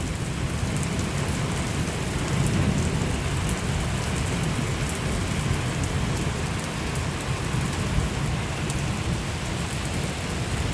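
Steady rain falling, with fine patter of drops and a continuous low rumble underneath.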